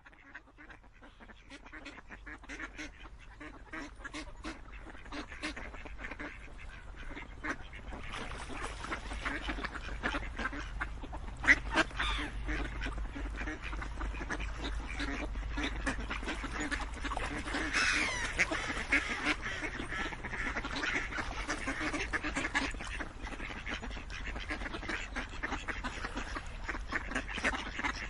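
A flock of geese honking, with many short calls overlapping, growing louder over the first several seconds.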